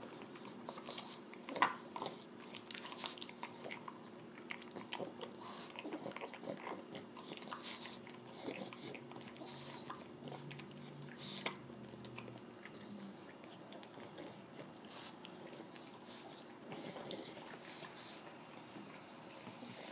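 A pug biting and chewing watermelon: irregular crunches and smacking clicks.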